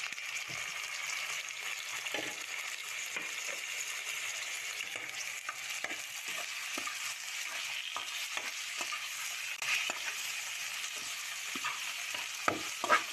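Whole shrimp frying in oil with garlic and onion in a frying pan, a steady sizzle, while a utensil stirs them and taps and scrapes the pan many times, with a few louder knocks near the end.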